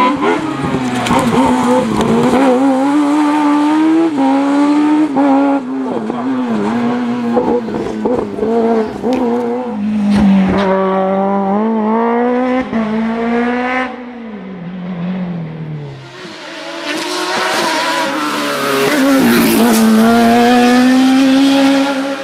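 Slalom race car engine revving hard through the course, its pitch rising and dropping repeatedly with throttle and gear changes. About fourteen seconds in the note falls away, then a loud, high-revving engine builds up again a few seconds later.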